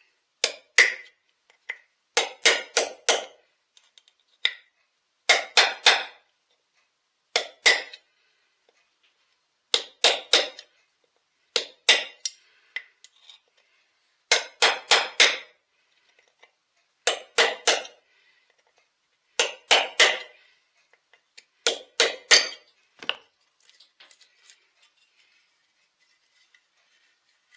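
Sharp metallic taps in quick groups of two to four, repeated every couple of seconds with a slight ring: tapping on metal to drive the old oil seal and bearing out of a Husqvarna 263 chainsaw crankcase.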